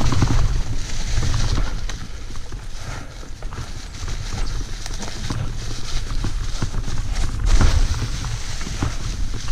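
Mountain bike riding over a rough dirt trail: tyres rolling over dirt and stones, with frequent rattling knocks from the bike and a low rumble of wind on the helmet camera's microphone, louder near the start and again about three-quarters of the way in.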